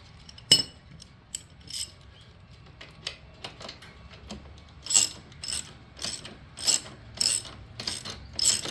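Hand ratchet wrench clicking as it is worked back and forth to tighten the mounting bolt of a motorcycle mini floorboard: a few scattered clicks, then from about five seconds in a steady run of strokes about two a second.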